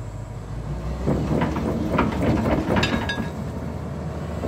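Hyundai crawler excavator's diesel engine running under a steady low rumble while its steel tracks clank and creak as it crawls up onto a flatbed truck's deck. The clanks come irregularly from about a second in, with a brief metallic squeal near the middle.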